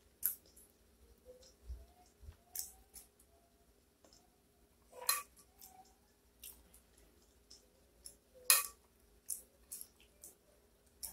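Close-up eating sounds of spicy crab and tteokbokki being chewed: sharp, wet mouth clicks and smacks at irregular intervals, about one a second, mixed with a metal spoon scraping and clinking on a ceramic plate.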